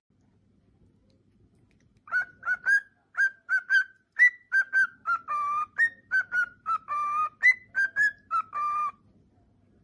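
Male cockatiel whistling its song: a quick run of short whistled notes, with a few longer held notes among them, starting about two seconds in and stopping about a second before the end.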